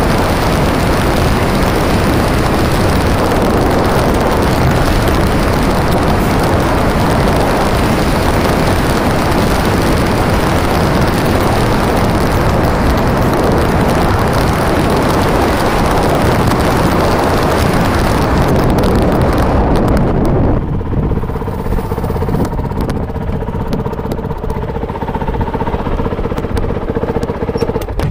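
Motorcycle riding on a sand track, its engine running under a loud rush of wind on the microphone. About twenty seconds in the wind rush cuts out and a quieter, steady engine hum remains.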